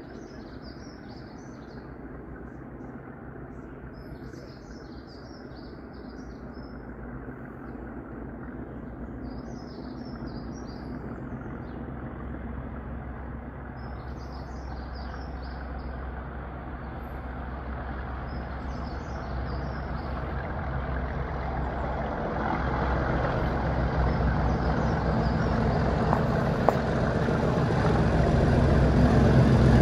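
Class 37 and Class 20 diesel locomotives (English Electric V12 and V8 engines) working hard as they approach, their engine sound growing steadily louder. Small birds chirp in short bursts over the first twenty seconds or so.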